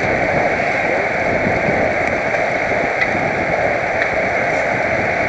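Steady wind noise buffeting a helmet-mounted camera's microphone while cycling at speed.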